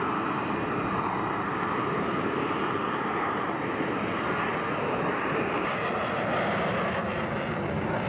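F-35B Lightning II's F135 turbofan jet engine at takeoff power, a steady loud rush as the fighter lifts off and climbs away. About six seconds in, a sharp crackle joins it.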